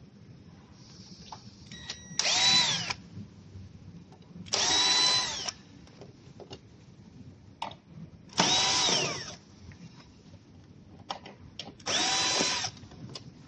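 Power drill running in four short bursts of about a second each, its pitch rising as it spins up and falling as it stops, with light clicks of handling between.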